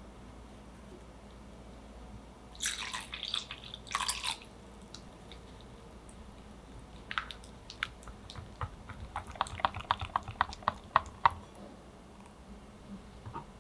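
Liquid poured and splashing into a glass bowl for a second or two, about three seconds in. Later, a silicone-coated wire whisk beats a chocolate, egg-yolk and milk batter, ticking against the glass bowl about four times a second before stopping.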